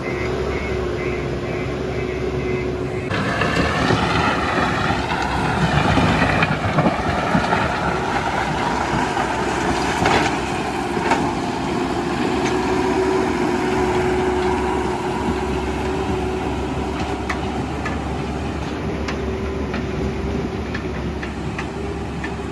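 JCB 3DX backhoe loader's diesel engine running. About three seconds in it picks up load and gets louder for a few seconds with a wavering whine, then settles back to a steady run, with scattered sharp knocks.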